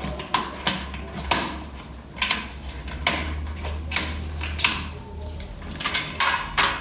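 A dozen or so irregular sharp metallic clicks and clinks as the autoclave's lid nuts are worked and tightened to close the cover, over a low steady hum.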